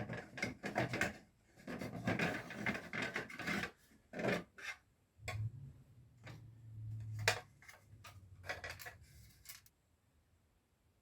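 Irregular scraping and rubbing with sharp clicks: hands and tools working on a number plate, taking it off and screwing a new digit to it. A low hum runs for about two seconds in the middle, and the noises stop near the end.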